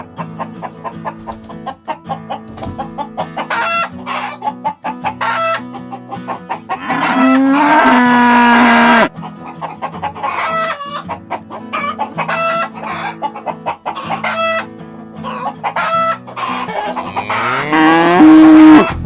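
Farm animal sounds over a background music track: chickens clucking repeatedly, with two long loud animal calls, one about halfway through and one near the end.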